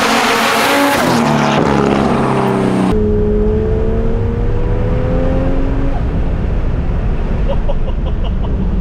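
800 hp FPV F6 ute's turbocharged 4.0-litre straight-six under hard throttle, first heard from outside the car with a loud hiss and its pitch dropping. It then changes abruptly to the sound inside the cabin, where the engine pitch rises for about three seconds as it accelerates, then settles into a steady low rumble.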